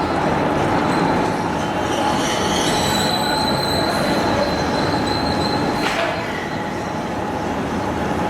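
Aluminum-shell induction furnace running: a steady noisy din with high whining tones laid over it, and one short sharp noise about six seconds in.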